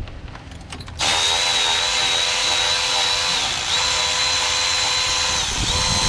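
Power driver running steadily as it spins a water pump bolt out, starting about a second in. Its motor whine drops briefly twice as the trigger eases off, then picks back up.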